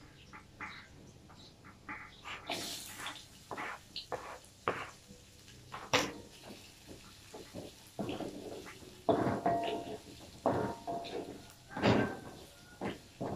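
Wooden spatula scraping and knocking against a wok while stir-frying chopped garlic and shallots, in irregular strokes, some with a brief squeak.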